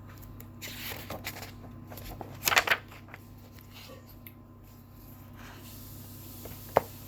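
Paper rustling and handling of a picture book as a page is turned: a few quick rustles in the first three seconds, the loudest a little after two and a half seconds in, then a single sharp click near the end.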